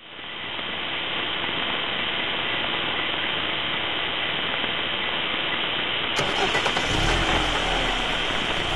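A vehicle engine running steadily. About six seconds in, the sound cuts to a clearer recording with a stronger low rumble.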